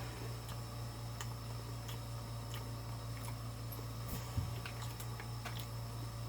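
Close-miked chewing of crispy fried chicken: scattered soft crunches and mouth clicks, one louder crunch about four seconds in, over a steady low hum.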